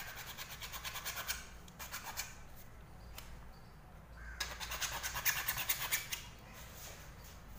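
A hacksaw blade, held bare in the hand, sawing into a piece of PVC pipe with quick back-and-forth rasping strokes. The strokes come in two spells: one through the first two seconds or so, then another from about four and a half to six seconds in.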